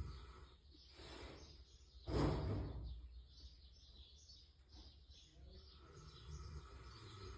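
A person snoring in sleep: a softer snore about a second in, then a louder one about two seconds in, with birds chirping faintly in the background.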